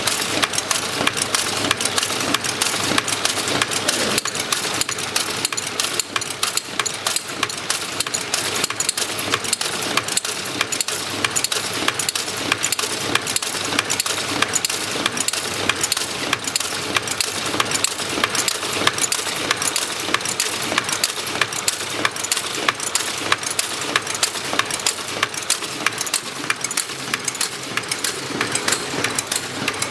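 Automatic tea packaging machine running steadily, a fast, even mechanical clatter of repeated clicks.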